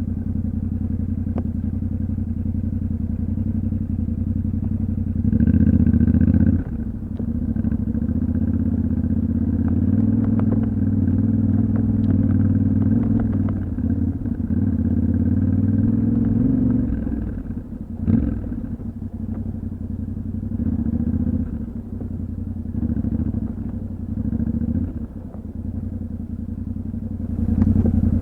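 Yamaha Ténéré 700's 689 cc parallel-twin engine running off-road with the throttle opening and closing. It swells with a short burst about six seconds in, pulls harder for several seconds in the middle, eases off around eighteen seconds, and opens up again near the end. Occasional light knocks and clicks are mixed in.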